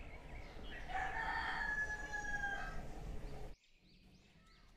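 A rooster crowing once: a single drawn-out call of about two seconds at a held pitch, over a steady low rumble. All sound cuts off abruptly about three and a half seconds in.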